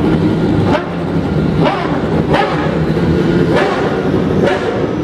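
Engines of parade cars lapping at low speed: a steady, loud drone with short rising sounds about once a second.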